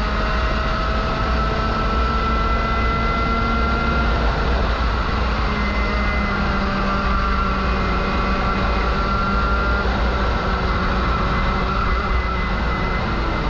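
A 125cc two-stroke shifter kart engine running on track, loud and continuous, its pitch drifting slowly up and down.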